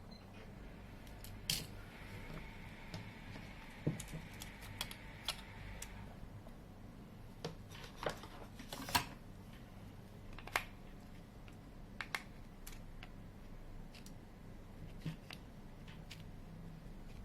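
Irregular small clicks and taps of tools and plastic parts being handled while a smartphone is taken apart, with a faint steady high tone for a few seconds near the start.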